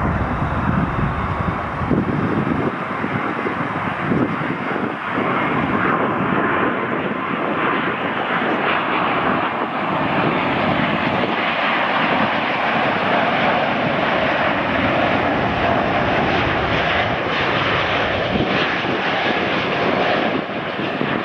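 Boeing 777 twin jet engines on final approach to land, a steady continuous jet noise with a faint whine in it.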